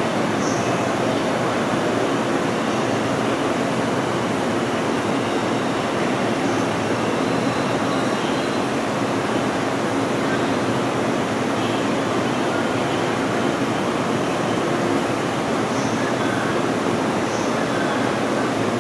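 Steady, unchanging hum and rush of a stationary 185 series electric train's onboard equipment running while it stands at the platform.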